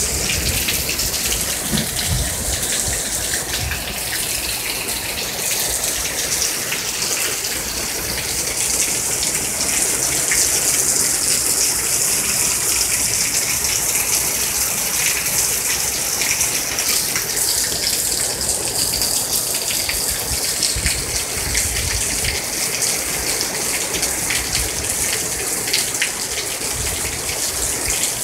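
Heavy rain pouring down steadily, a dense, even hiss.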